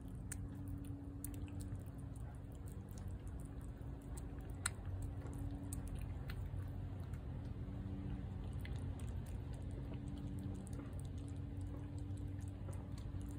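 A cat eating wet cat food off a plate: many small, soft, wet chewing and smacking clicks, with one sharper click about four and a half seconds in. A steady low hum runs underneath.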